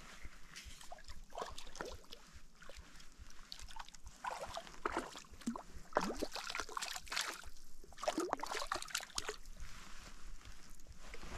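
Water sloshing and splashing in irregular bursts.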